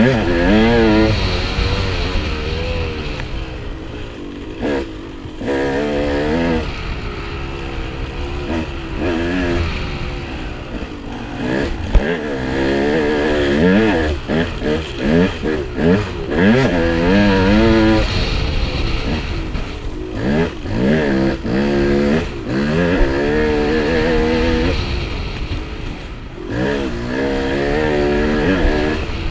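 Dirt bike engine revving up and falling back over and over as the rider accelerates and shifts along the trail, heard from the rider's helmet over a low wind rumble. A single sharp knock about twelve seconds in.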